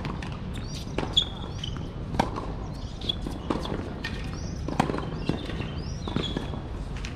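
Tennis rally on a hard court: a serve, then sharp pops of racket strikes and ball bounces about every second or so. Short bird chirps sound in the background.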